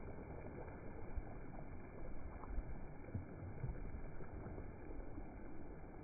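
Shallow surf washing in over sand at the water's edge: a steady rushing wash with uneven low rumbles.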